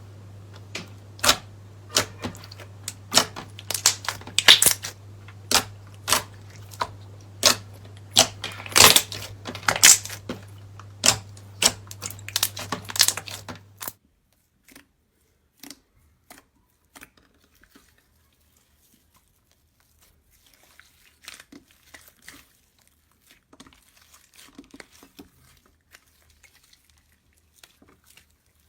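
Slime being squeezed and poked, giving an irregular run of sharp pops and clicks from trapped air, over a low steady hum. About halfway through it changes abruptly to fainter, sparser crackling pops.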